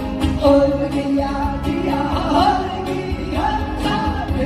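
Live Korean folk-style group singing by a pansori troupe, several voices together over band accompaniment with a steady beat.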